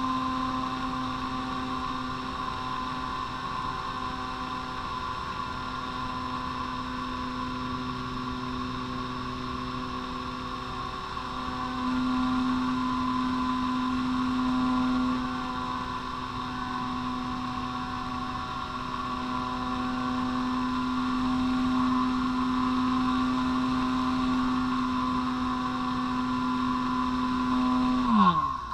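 Electric motor and propeller of a ParkZone Radian Pro model glider running at steady climbing power, heard from a camera on the plane: a steady pitched drone with a high whine above it. Near the end the motor is cut and the pitch falls away quickly.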